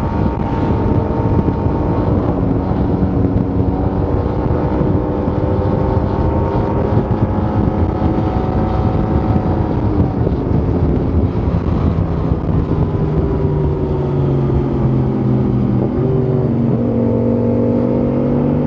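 Yamaha T-MAX 530 maxi-scooter's parallel-twin engine running through its stock exhaust, the engine note mostly steady, easing down slowly through the middle and picking up again near the end.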